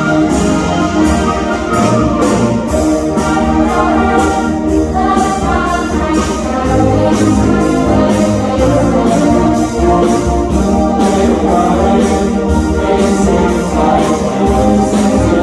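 A student concert band playing full chords on brass and woodwinds.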